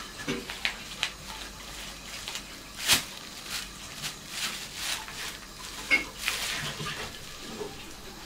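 Thin plastic bags rustling and crinkling as a cat paws, bites and rolls in them, in irregular crackles with one sharper crackle about three seconds in.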